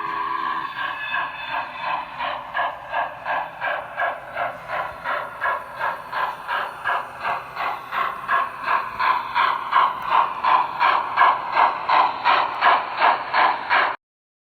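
Steam locomotive chuffing sound from a small speaker, an even beat of about three chuffs a second that grows louder in the second half, then cuts off suddenly near the end.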